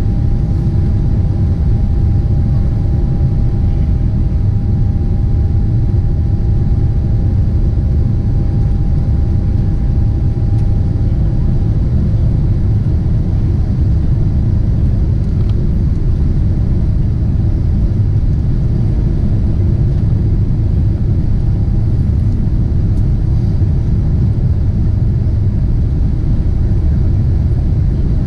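Boeing 747-8 airliner in flight: a steady low rumble of engines and airflow that holds an even level throughout. A faint steady tone fades out about twelve seconds in.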